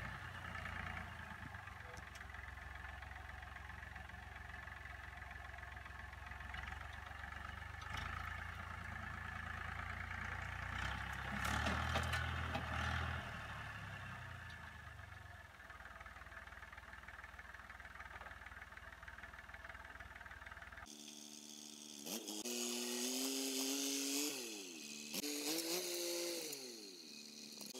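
Massey Ferguson 231S tractor's diesel engine running as it pushes brush with a rear box blade, louder for a couple of seconds near the middle. About three-quarters of the way through the sound changes abruptly to a higher engine note that rises and falls several times.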